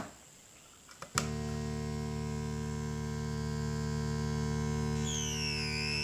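Brunswick DIY synthesizer's pulse oscillator through its low-pass filter: a click, another click about a second in, then a steady buzzing drone. Near the end a thin high whistle dips and then rises as the filter is swept.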